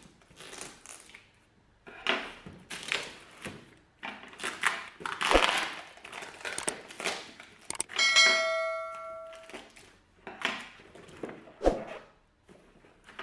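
Cardboard shipping boxes being cut open and handled: scraping and rustling of cardboard and packing tape, with two thuds as a box is set down on the table. Partway through, a bell-like notification chime rings for about a second and a half.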